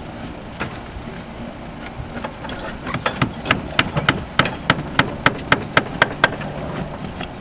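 About a dozen quick, sharp hammer strikes, three to four a second, starting about three seconds in, as a clay barrel ridge cap tile is fastened in place over the ridge vent.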